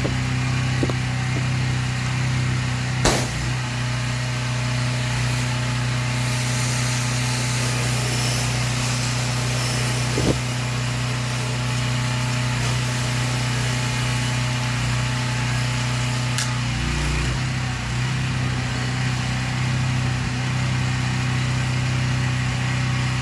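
Pressure washer engine running steadily at constant speed, with a sharp click about 3 seconds in and another about 10 seconds in.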